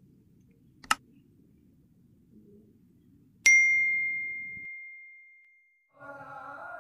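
Subscribe-button animation sound effects: a single sharp mouse click about a second in, then a bright notification-bell ding about three and a half seconds in that rings out and fades over about two seconds.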